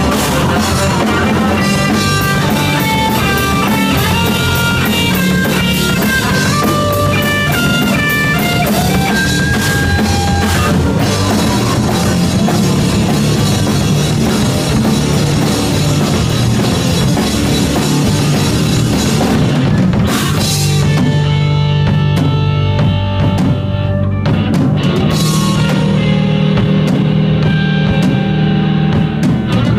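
Live hard rock band playing loud: a Yamaha drum kit, electric guitar and bass guitar. About two-thirds in the cymbals drop out for a sparser passage, and they come back near the end.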